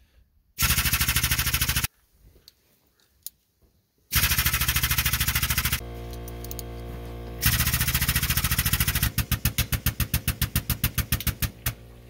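Harbor Freight air-over-hydraulic bottle jack's air pump chattering rapidly as it lifts the truck's front axle. It runs in several loud bursts with short pauses between them. Near the end the strokes become separate and fade out.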